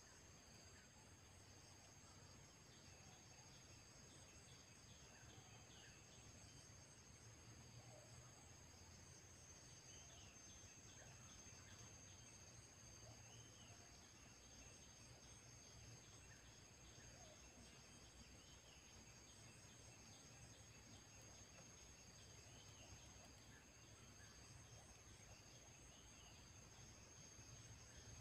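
Near silence: faint open-field ambience, a steady high insect drone with a few faint, scattered bird chirps.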